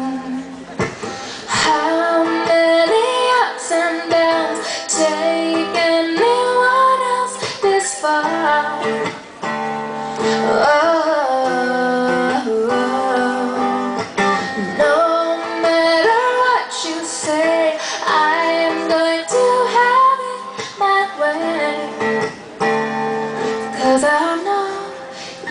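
A woman singing a song live, with instrumental accompaniment.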